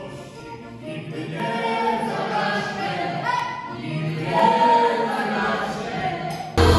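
Several voices singing together without instruments. Just before the end, louder music with a heavy bass comes in suddenly.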